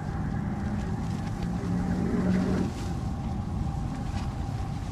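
Steady low wind noise buffeting the tent and the microphone as the high winds ease off.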